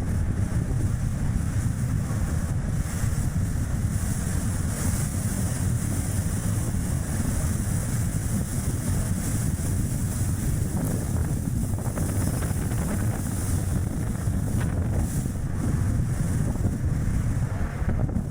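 Gusty wind buffeting the microphone over steady road and tyre noise from a small car driving, a constant low rumble.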